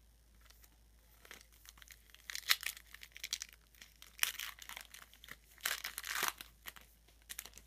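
Foil wrapper of a 2013 Topps Strata football card pack crinkling in the hands and being torn open: a run of short crackles, with a longer rip about six seconds in.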